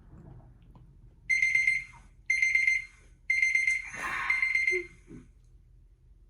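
Electronic alarm beeping: four steady, high-pitched beeps about a second apart, starting a little over a second in, with a brief noisy rush just before the last beep.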